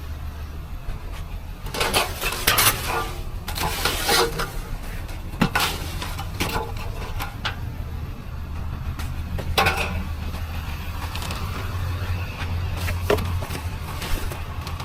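Hard objects being handled, a handful of clattering knocks and rattles, over the steady low hum of an engine running.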